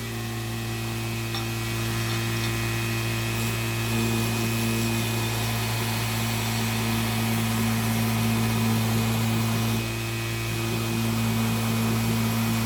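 Electric machine tool running steadily on a steel knife blank, a constant motor hum with hiss, getting a little louder about four seconds in and dipping briefly near ten seconds.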